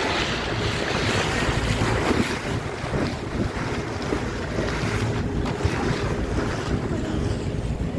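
Wind buffeting the microphone over water splashing and rushing past the hull of a small boat under way.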